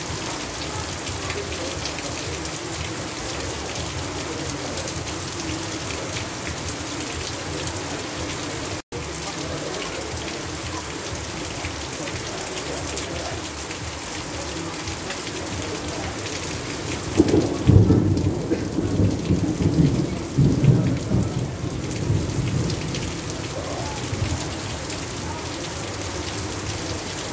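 Heavy rain pouring steadily, with water running off a roof edge. About two-thirds of the way in, thunder rumbles for several seconds in a few rolling peaks, the first the loudest, then dies back into the rain.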